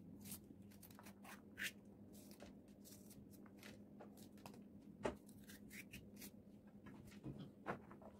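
Small kitchen knife slitting long green peppers and scraping out their seeds over a plastic tray: faint crisp cuts and scrapes, with a few sharper clicks.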